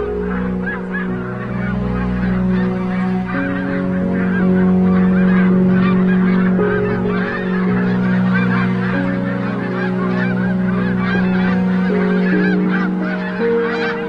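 A large flock of snow geese honking in a dense, unbroken chorus of overlapping calls. Steady low sustained notes run underneath and change pitch every few seconds.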